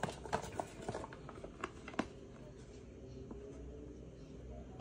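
Light scattered clicks and taps of hands handling food and a clear plastic container at a platter, with one sharper tap about two seconds in.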